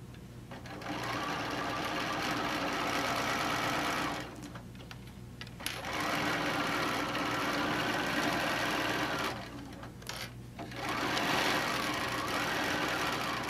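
Bernina sewing machine stitching a quarter-inch seam through layered fabric in three runs, stopping briefly about four seconds in and again about ten seconds in, its hum rising and falling a little with speed.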